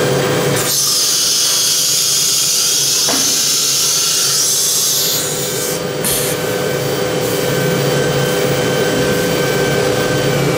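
CNC router's automatic tool change on an HSD air-cooled spindle: a loud hiss of compressed air starts about a second in and lasts about four seconds, with a brief second hiss a little later, over a steady machine hum.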